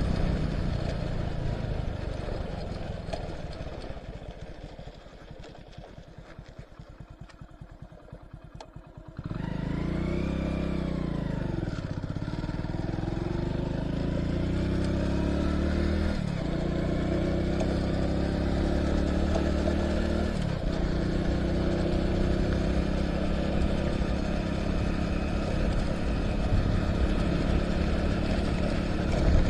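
Motorcycle engine running on a gravel road. It fades to a low, pulsing run for a few seconds, then about nine seconds in the sound jumps up and the engine pulls strongly, its pitch rising and falling. There are brief dips a few seconds later and again near twenty seconds.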